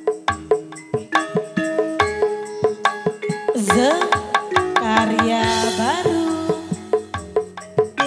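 Live campursari music: held pitched notes over a steady beat of hand-drum and wooden percussion strikes. About halfway through, a sliding, bending melody line comes in for a couple of seconds.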